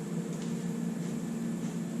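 Steady mechanical hum with a faint high whine over it.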